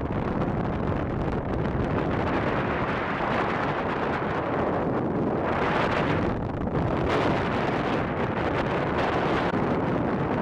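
Speedboat running at speed: steady wind rushing over the microphone, mixed with water rushing past the hull and the boat's motor.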